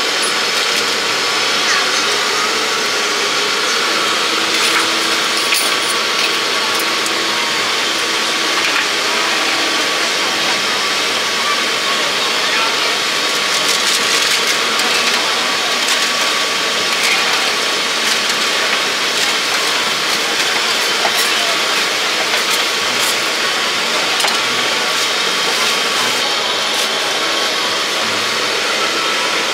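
Steady loud roar of a street-food stall's cooking equipment, with faint voices underneath and a few light clicks of utensils.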